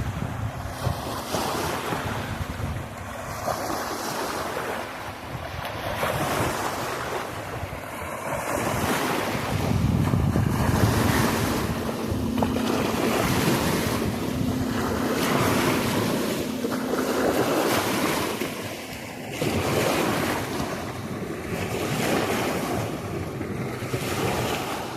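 Wind buffeting the microphone over bay waves washing against the shore, swelling and easing every few seconds.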